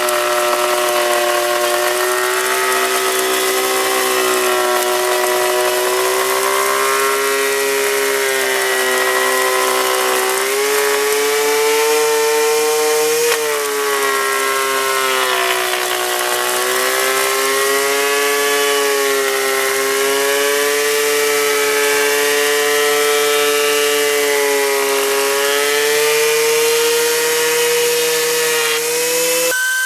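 DeWalt 13-inch benchtop thickness planer running loud and steady, its motor pitch sagging briefly a few times as the rough white oak boards load the cutterhead. It cuts off suddenly near the end.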